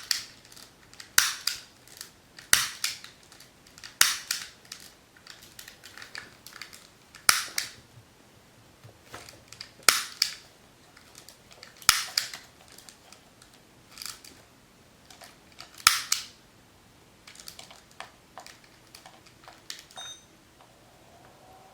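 Sharp clicks and snaps, irregularly spaced, with a loud one every one to three seconds and fainter clicks between them.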